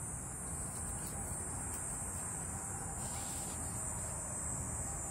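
Steady high-pitched insect trilling, such as crickets, over a low background rumble.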